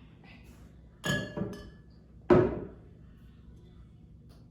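Soda bottles clinking together twice with a short ring, then one sharper, louder knock of a bottle set down on a table.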